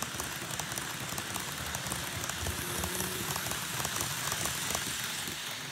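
KATO N-gauge E257 series model train running along the layout track, a dense crackle of tiny clicks as it rolls over the rails, easing slightly near the end as the train moves off.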